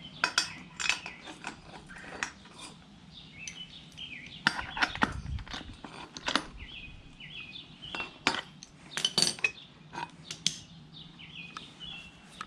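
Irregular metallic clinks and clicks of a wrench on the nuts and washers of a boat-wheel mounting bracket as a bolt is snugged tight, coming in clusters near the start, about halfway and near the end.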